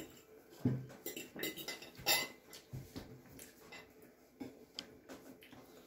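Scattered light clinks and taps of dishes and utensils being handled on a table, with a few quick, sharper clatters about a second and a half to two seconds in.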